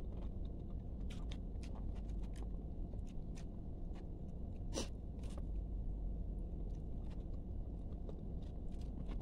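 Crispy fried chicken skin being chewed and handled, giving scattered small crunches and clicks, one sharper crack about midway, over a steady low hum.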